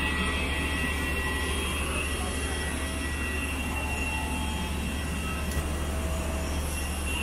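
Steady airport apron noise from parked jet aircraft and ground equipment: a high-pitched whine over a low drone, with a small click about halfway through.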